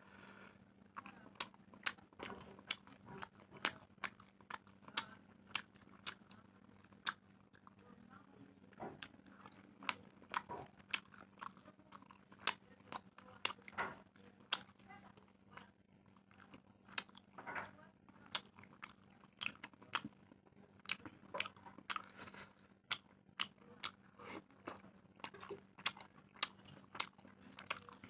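A person chewing and biting food close to the microphone, with irregular sharp mouth clicks and crunches about one or two a second. A faint steady low hum lies underneath.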